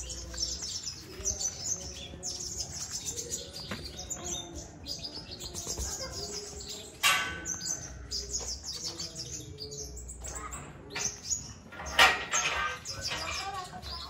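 A Konin Kalimantan lovebird sings a fast, chattering song of rapid high chirps, moving quickly from one phrase to the next in the way typical of the Kalimantan strain. There are two louder sharp sounds, about seven and twelve seconds in.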